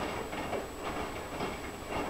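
Front-loading washing machine in its wash cycle: the drum turning and wet laundry sloshing and splashing in soapy water, heard as a run of uneven swishes.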